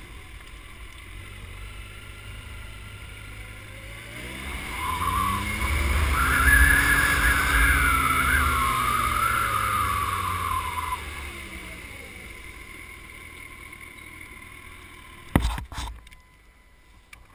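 Kawasaki ZX-14's inline-four engine pulling away, rising in pitch over a couple of seconds, holding a higher, louder note for about five seconds, then falling back as the bike slows to a low steady running. A sharp knock comes near the end, after which it goes much quieter.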